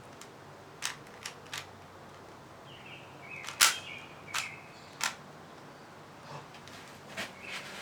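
Rubik's Cube being twisted: about seven sharp plastic clicks at irregular intervals, the loudest about three and a half seconds in.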